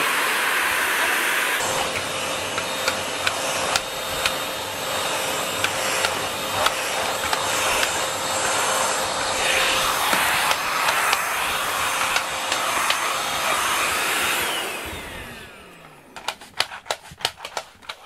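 Cordless handheld stick vacuum running steadily as it is pushed over a foam floor mat, then switched off about fifteen seconds in, its motor winding down. A run of sharp clicks and knocks follows.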